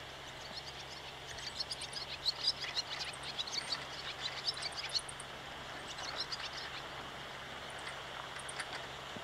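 Outdoor ambience of small birds chirping and twittering in quick high calls, busiest in the first half, over a low steady hum.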